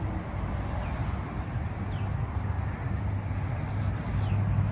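Steady outdoor road-traffic noise, with a low engine hum growing louder near the end and a couple of faint high chirps.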